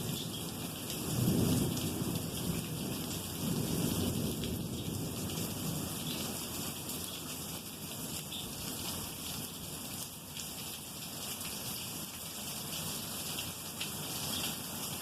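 Rolling thunder rumbling low, swelling twice in the first few seconds and then dying away, over steady rain.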